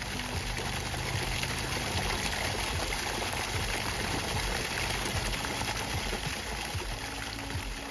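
Water gushing and splashing steadily where it surges up through a pond's surface from an underwater outlet.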